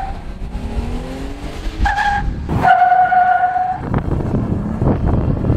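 Jeep Gladiator's 3.6-litre V6 accelerating hard, its pitch rising through the first two seconds, with a steady high tone that comes and goes and a couple of sharp knocks later on.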